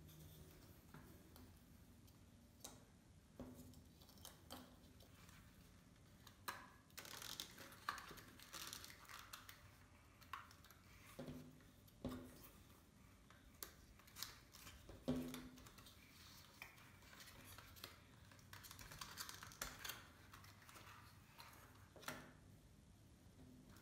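Faint handling of a foam-board 3D puzzle model: scattered light clicks and taps as flat foam pieces are picked up and pushed into slots, with stretches of soft rubbing and scraping, and one sharper tap about two-thirds of the way through.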